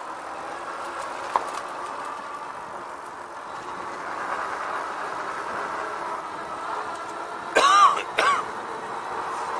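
RadRover e-bike riding along a paved path: a steady hub-motor whine mixed with tyre and wind noise, a short click a little over a second in, and two short, loud, pitch-bending sounds near the end.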